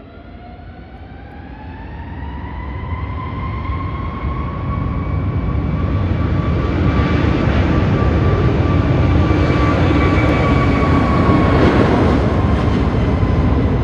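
Airbus A320neo jet engines on the takeoff roll, spooling up to takeoff power: a whine that climbs in pitch over the first few seconds and then holds steady, over a roar that grows steadily louder as the airliner comes down the runway.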